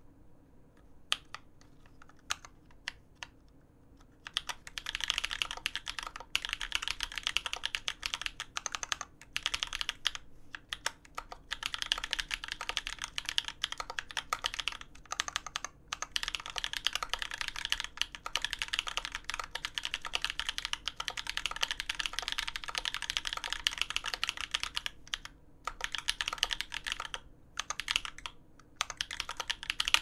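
Touch-typing on a custom Alice-layout mechanical keyboard (BMEK Alice x HHKB) with lubed Holy Panda tactile switches on an aluminium plate and GMK ABS keycaps. A few separate keystrokes at first, then a fast, dense run of keystrokes broken by brief pauses, with a longer lull a few seconds before the end.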